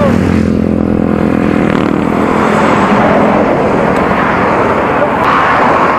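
A motor vehicle running close by on the road: a steady engine hum that gives way after a second or two to a rushing noise of tyres and air.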